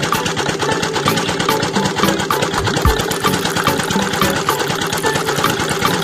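Small motor of a DIY model machine running steadily with a fast, even clatter, with one low thump about three seconds in.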